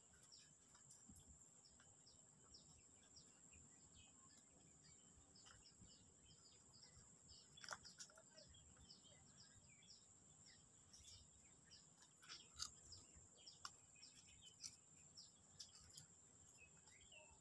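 Faint rural ambience: scattered short bird chirps over a steady high-pitched insect drone, with a few faint clicks.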